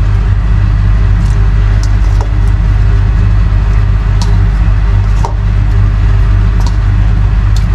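A steady, loud low mechanical hum, with a few light clicks and taps as slices of raw meat are dropped by hand into a stainless steel pot of water.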